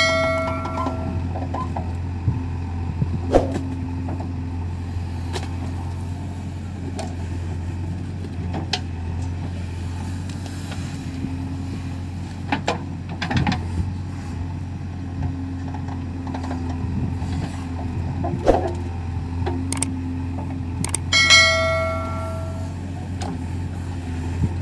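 JCB 3DX backhoe loader's diesel engine running steadily under digging load, a constant low drone with scattered short clunks from the working bucket and arm. A short bell-like chime sounds twice, at the very start and about 21 seconds in, from a subscribe-button animation.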